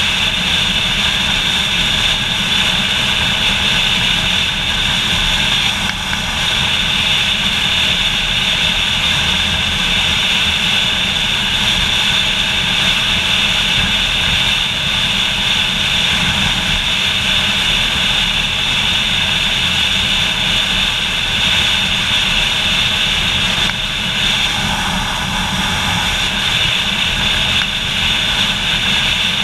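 Motorcycle cruising at steady road speed: a constant drone of engine and rushing wind on the bike-mounted microphone.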